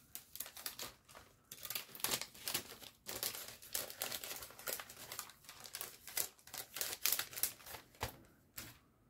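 Paper card and a clear plastic sleeve being handled, crinkling and rustling in many quick, irregular bursts that stop near the end.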